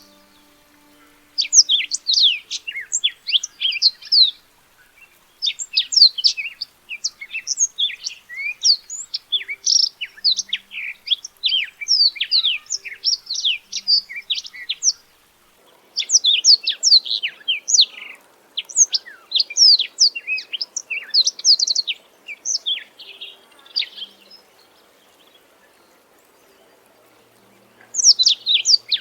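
Black-throated canary singing: fast, varied phrases of quick high notes, mostly sweeping downward, in several long bursts with short pauses between them. A gap of about four seconds comes before a final phrase starts near the end.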